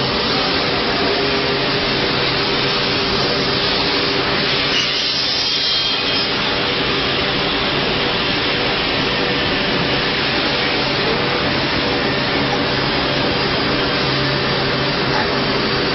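5-axis CNC router's spindle running while its cutter carves a block of stone: a steady noise with a low hum under it.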